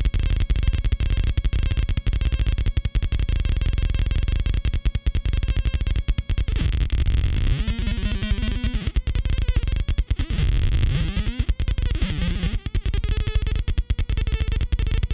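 Handmade 4093 quad-oscillator drone synth putting out a gritty, stuttering electronic buzz as its oscillator frequency knobs are turned. From about halfway through, wobbling pitches sweep down and up, and a steadier tone settles near the end.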